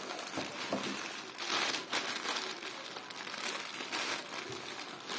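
Clear plastic wrapping and a paper gift bag crinkling and rustling in irregular bursts as a plush toy is pulled out and handled.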